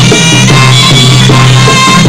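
Traditional Cambodian boxing ring music: a reedy wind instrument holding a shrill melody over skor yaul drums, playing continuously.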